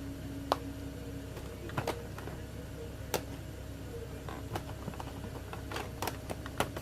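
A handful of sharp, irregular plastic clicks and taps as makeup palettes are handled, over a faint steady hum.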